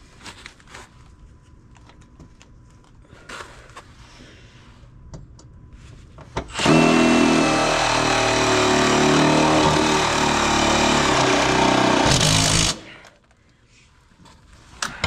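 Power drill running steadily for about six seconds, driving a fastener into the van's body, then stopping abruptly; light clicks and knocks of handling come before it.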